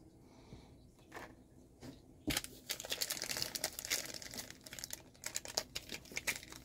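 A crinkly plastic toy wrapper being handled and torn open by hand. A few faint taps come first, then dense crinkling begins a little over two seconds in.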